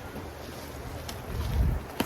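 Wind buffeting the microphone: a low rumble that swells into a gust about one and a half seconds in, with a faint click or two.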